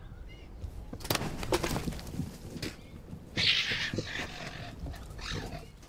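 Alarmed cheetah cubs hissing and spitting, with a louder hiss a little past the middle, among a few sharp clicks and knocks.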